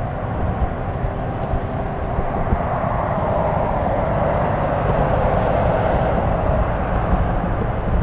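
Federal Signal Model 5B mechanical fire siren sounding a steady wail, its pitch drifting up slightly about midway and then sinking a little, with wind rumbling on the microphone.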